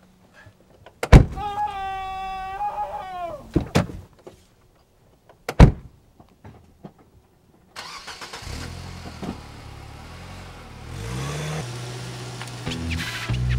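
A car: a sharp knock about a second in, then a steady buzzy tone for about two seconds that sags in pitch as it ends, and two more sharp knocks. About eight seconds in the engine starts and runs, rising in pitch as it revs and pulls away.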